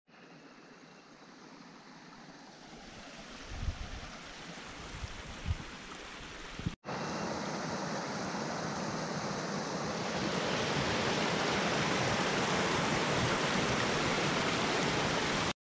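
A small mountain stream rushing and cascading over rocks in a steady rush of water. It gets louder about ten seconds in. Before it, a quieter rushing builds, with a few knocks and a brief break.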